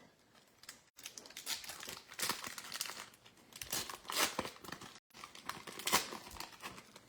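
Wrapper of a trading card pack crinkling and tearing as it is ripped open and handled, in irregular rustles and crackles.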